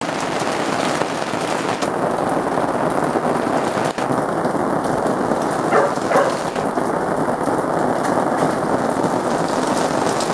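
Steady rain falling hard, an even hiss of drops, with two faint short pitched calls about six seconds in.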